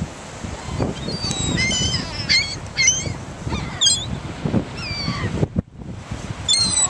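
Seagulls calling: a run of short, high calls, several a second in the busiest stretch, with wind rumbling on the microphone underneath.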